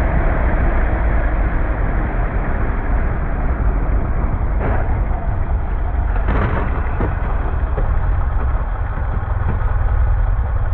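Steady rumble of a moving vehicle's engine and wind noise, broken by a brief noise about four and a half seconds in and a brief crash about six seconds in, as a car and a motorcycle collide ahead.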